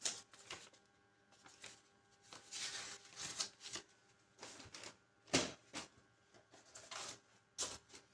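Paper rustling in a run of short crinkles and flutters, as the pages of a small instruction booklet are handled and turned. The loudest rustle comes about five seconds in.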